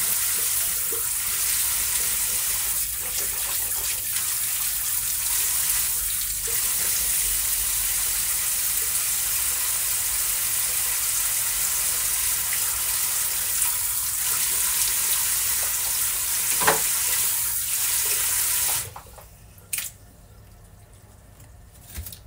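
Steady hiss of running water, like a tap left running, that cuts off abruptly near the end, followed by a single short click.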